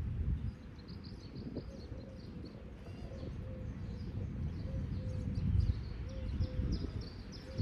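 Small birds chirping in short, high-pitched calls again and again, over a low rumble of background noise.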